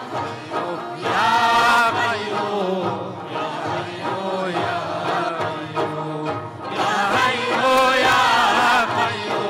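Burushaski devotional ginan: singers carry a wavering, ornamented melody, swelling loudest about a second in and again from about 7 seconds, over plucked long-necked lutes and frame drums that keep a regular beat.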